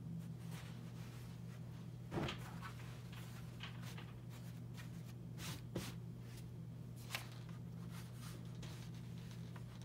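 Clothes being handled on an ironing board: soft fabric rustling with a few light knocks, the loudest about two seconds in, over a steady low hum.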